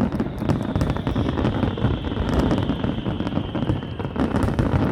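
Fireworks going off: a dense run of bangs and crackles over a low rumble, with a high steady whistle that stops about four seconds in.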